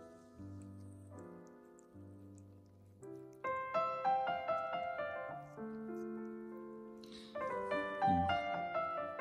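Background piano music: slow, soft chords that grow louder and busier about three seconds in.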